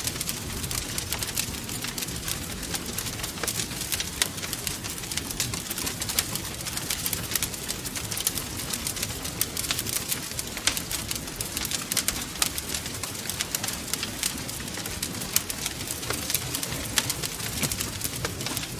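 Wood fire crackling, with frequent sharp pops and snaps over a steady low rumble of the flames.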